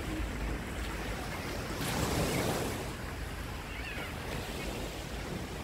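Small waves breaking and washing up on a sandy beach, one wave swelling loudest about two seconds in, with wind rumbling on the microphone.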